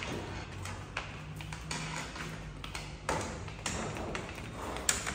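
Folding plastic playpen panels being carried and moved: scattered light plastic taps and knocks as the panels and their connectors bump together and against the tiled floor, with a sharper click just before the end.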